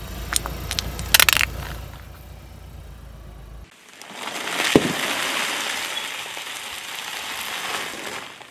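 A car tyre rolling over plastic toothpaste tubes gives a few sharp cracks about a second in, over a low rumble. Then a car tyre rolls onto a sealed foil bag of crisps: a long crinkling crunch of the bag and the crisps inside being crushed, with one sharp crack just after the crunching starts.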